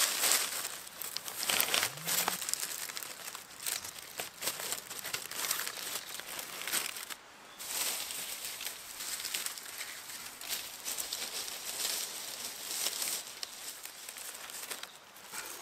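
Dry water reed stalks rustling and crackling in irregular bursts as they are handled and packed by hand into a long ridge roll.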